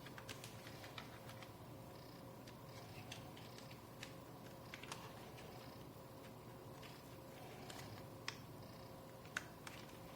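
Faint scattered small clicks and taps of a 2.5-inch laptop hard drive being fitted into a slim plastic-and-metal HDD caddy, over a steady low hum.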